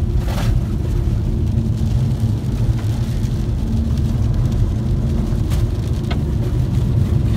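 Car cabin noise while driving on a dirt road: a steady low rumble of tyres and engine, with a few faint ticks.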